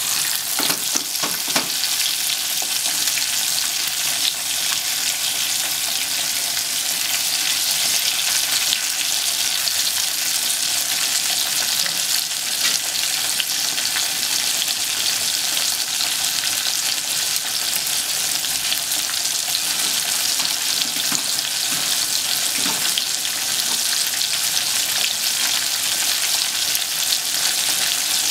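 Breaded pork cutlets (tonkatsu) deep-frying in a pot of hot oil: a steady sizzle.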